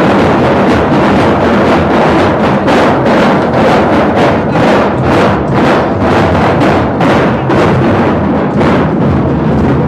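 Large double-headed bass drums beaten with sticks in a fast, steady procession rhythm, about three strokes a second.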